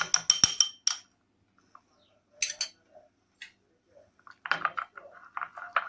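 A spoon clinking and scraping against a bowl while a thick spice marinade is stirred: a quick run of ringing clinks in the first second, a few more about two and a half seconds in, and softer stirring sounds near the end.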